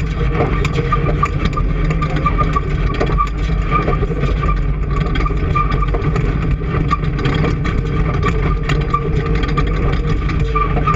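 An engine running steadily at an even speed, with no change in pitch or load.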